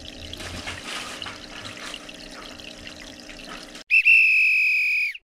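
Aquarium water bubbling and trickling over a steady low hum. Then a loud, steady whistle-like tone plays for just over a second, dips in pitch and cuts off.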